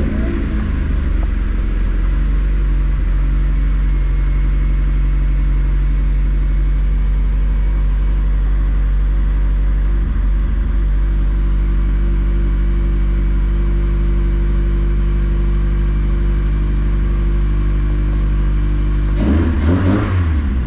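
NB Mazda Miata's four-cylinder engine idling steadily just after starting, running fine on a newly installed Deatschwerks fuel pump. There is a brief burst of louder noise near the end.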